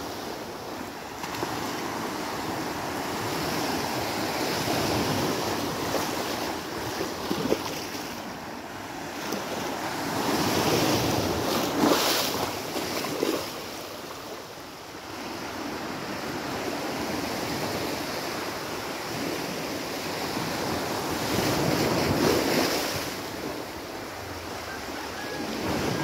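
Small sea waves breaking and washing up a sandy beach, swelling and fading every few seconds, with wind buffeting the microphone. A few short knocks, the loudest about twelve seconds in.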